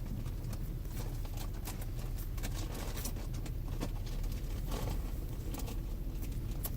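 Handling noise: scattered light clicks and taps, irregular, over a steady low hum.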